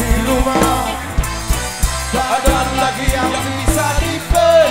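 Live band music: a drum kit keeps a steady beat under bass and a wavering lead melody.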